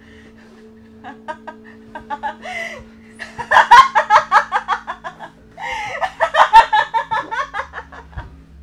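A man laughing hysterically in rapid bursts. The laughter starts with quiet chuckles, grows loud after about three seconds, breaks off briefly around the middle and then starts up again.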